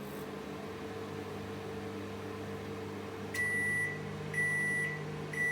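Samsung MS23K3614AW microwave oven running with a steady hum, then beeping three times, about a second apart, in short high-pitched beeps over the second half.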